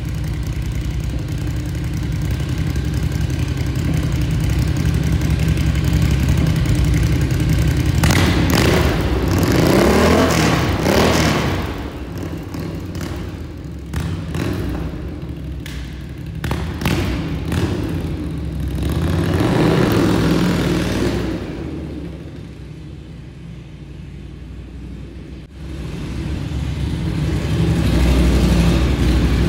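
1982 Yamaha Virago XV920's air-cooled V-twin, just cold-started, idling through a custom stainless baffled exhaust with a throaty note. It is revved up and let fall back about eight seconds in and again around twenty seconds, dropping to a quieter idle before picking up again near the end.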